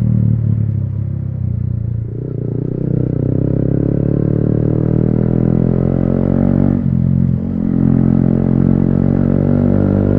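Yamaha MT-15's single-cylinder engine running loud and deep through an Akrapovic exhaust with its dB killer removed, its pitch climbing slowly, with two short dips, about two seconds in and near seven seconds in.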